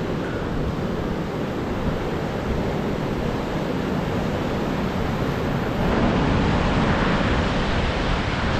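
Ocean surf breaking and washing up the sand, with wind on the microphone; the wash grows louder about six seconds in.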